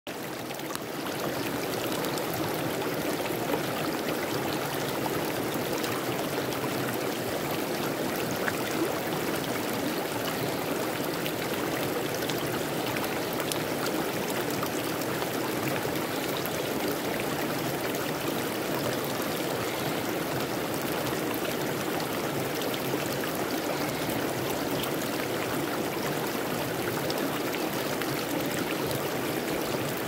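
Shallow stream running over stones and pebbles, a steady flow of water that fades in over the first second.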